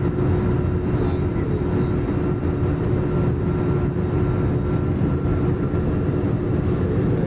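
Steady cabin noise of an Airbus A320-family jet airliner in cruise: a constant rumble of engine drone and airflow, with a faint steady hum on top.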